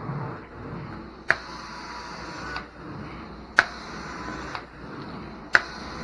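Hot-water carpet extraction wand in use: the spray valve clicks open three times, and each click is followed by about a second of spray hiss that then cuts off. The extractor's suction runs steadily underneath.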